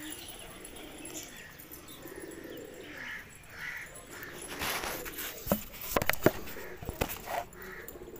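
Domestic pigeons cooing in a flock. Several sharp clicks or claps stand out in the second half.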